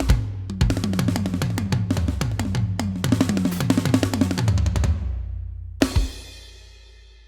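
Drum kit played in a fast, dense fill whose drum hits drop in pitch as they ring, then the kit stops. A single crash hit about six seconds in rings and fades out.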